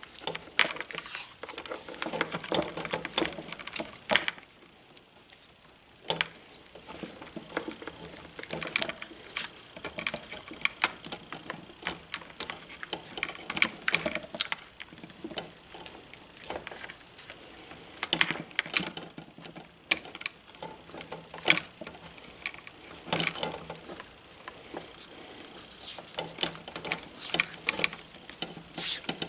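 Irregular clicking, crinkling and rustling of hands working on a wire cable, with a quieter pause about four seconds in.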